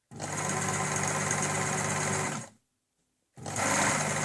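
Elna SU electronic sewing machine running under its thumb-pressed pressure pad: a steady motor hum for about two and a half seconds, a stop of about a second, then running again.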